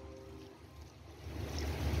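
Water pouring from a steel pot into simmering fish curry in a kadai, a quiet splashing pour. A brief metallic ring fades at the start.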